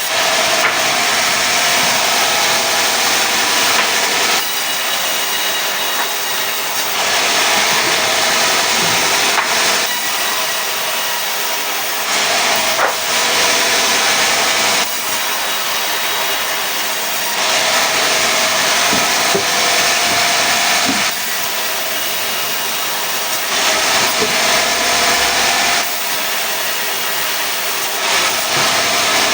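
Sawmill saw cutting pine logs into boards: a continuous loud saw-through-wood noise that steps up and down abruptly every few seconds.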